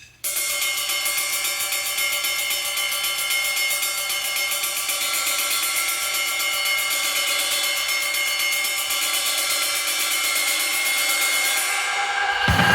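Background music: a sustained, layered chord with rapid cymbal-like ticking, joined near the end by low notes and gliding tones as it grows louder.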